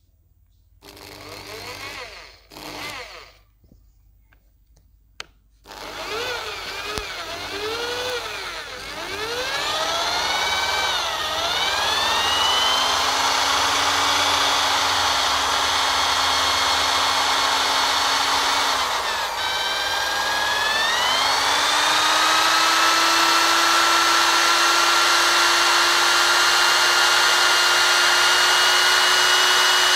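Electric drill spinning an 80-amp car alternator through a belt on its chuck, to charge a flat battery. Two short blips of the drill, then a continuous run from about six seconds in, its whine wavering and climbing in pitch, dipping briefly about twenty seconds in, then rising again and holding steady.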